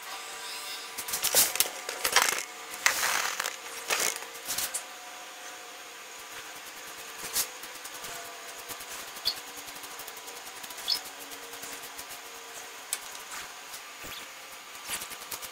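Foam brush stroking and dabbing water-based Polycrylic finish onto a scroll-sawn wooden panel: several scratchy strokes over the first five seconds or so, then softer, scattered light dabs and ticks.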